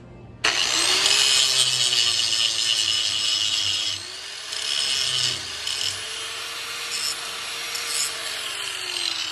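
Angle grinder cutting and grinding an aluminum plate clamped in a bench vise. It starts suddenly about half a second in: a loud grinding hiss over the motor's whine, which sags and recovers as the disc bites. It eases somewhat about four seconds in.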